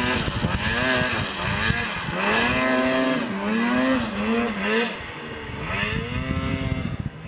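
Polaris RMK Assault snowmobile's two-stroke engine revving up and easing off several times as the sled climbs through snow, its pitch rising and falling. It fades toward the end as the sled crests the ridge.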